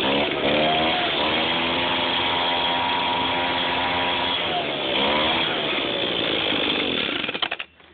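A roughly 30-year-old Echo handheld two-stroke leaf blower running after a cold start. Its engine speed rises and falls, holds steady for a few seconds, changes again, and then stops near the end.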